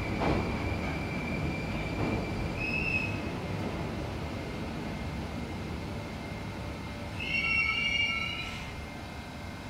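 Moscow Metro 81-760/761 "Oka" train rolling slowly into a dead-end turnback siding and coming to a stop: a low rumble of wheels on rail with a steady high whine at first. There is a brief squeal about three seconds in and a louder squeal of several tones near the end as the train halts, after which the rumble falls away.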